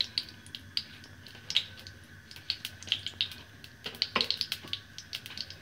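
Ghee heating in a hot nonstick pan, crackling with irregular small pops and spits. A single dull knock sounds about four seconds in.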